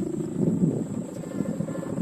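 Sendaren kite hummer made of petung bamboo, its 3 cm plastic (mika) ribbon droning in the wind. The hum is low and rattly, pulsing rapidly and swelling and easing a little, the snoring type of tone the uploader calls ngorok.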